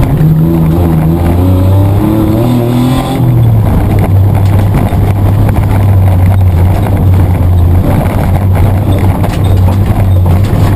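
Mitsubishi Triton's petrol engine heard from inside the cabin while racing. It revs up in rising pitch for about three seconds, drops in pitch, then holds a steady low drone.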